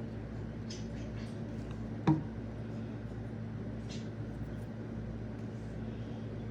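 Hands working with paper on a craft table: a few faint brief rustles and one sharp knock about two seconds in, over a steady low hum.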